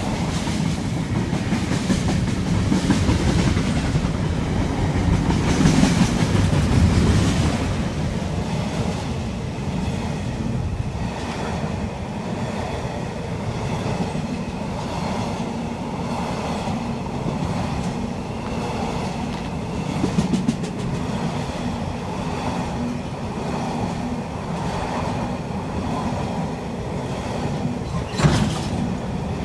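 Container freight train passing close by: a steady rumble of its wagons' wheels on the rails, with clickety-clack over the rail joints. One sharp clank sounds near the end.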